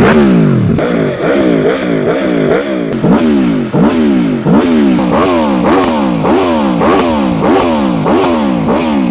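Aprilia Tuono V4 1100's V4 engine, standing in neutral, revved in quick repeated throttle blips about twice a second, each rising sharply and falling back, through its stock Euro 5 exhaust.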